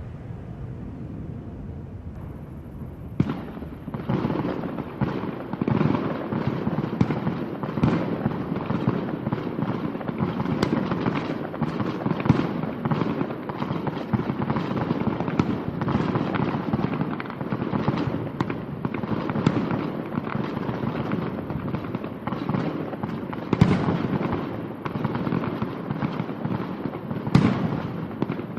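A low rumble, then from about three seconds in a dense, continuous run of sharp bangs and crackles, with a few louder bangs near the end.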